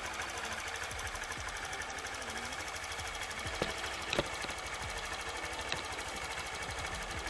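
Honda Click scooter's single-cylinder four-stroke engine idling steadily with a fast, even beat, running on its newly fitted spark plug after a test start. A few sharp clicks sound around the middle.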